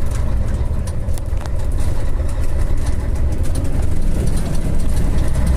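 Scania 113 truck's diesel engine running steadily while driving, heard from inside the cab as a low rumble, with light ticks and rattles.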